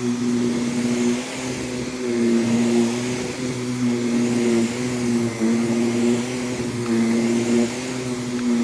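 Vacuum cleaner motor running steadily with a constant hum as it is worked over a rug, its level swelling and dipping every second or so with the back-and-forth strokes.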